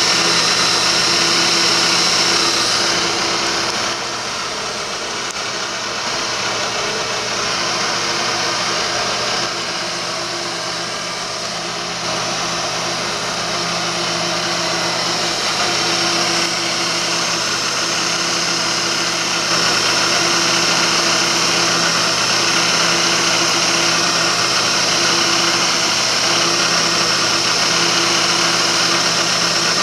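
ProtoTrak TRM CNC bed mill's spindle running steadily with a drill bit in the drill chuck, drilling a bolt-hole pattern into an aluminium block. The level dips and rises every few seconds over a constant whine.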